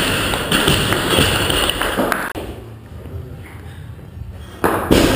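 A loaded barbell with bumper plates dropped onto rubber gym flooring near the end, landing with a loud thud and a short rattle. This follows a burst of loud noise in the first two seconds or so.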